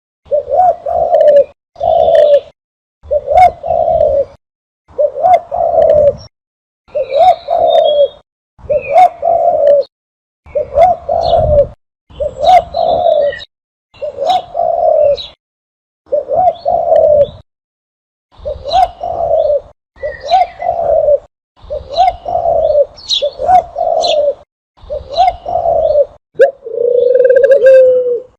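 Recorded dove cooing, used as a lure call for doves: a phrase of several low coos about every two seconds, broken by clean silent gaps. Faint higher chirps from smaller birds are mixed in, and a longer, flatter coo comes near the end.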